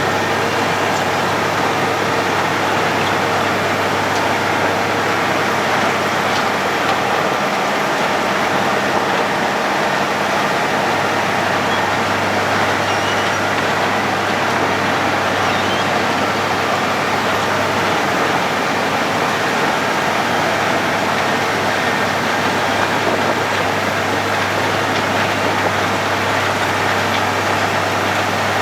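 Road planer (cold milling machine) working: its diesel engine running steadily under load while the milling drum grinds up the road surface, a loud constant din with a low hum.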